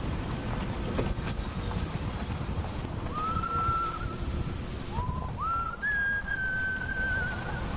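A person whistling a slow tune, starting about three seconds in: a few long held notes, each sliding up into pitch, over a steady low rumble of background noise. There is a single click about a second in.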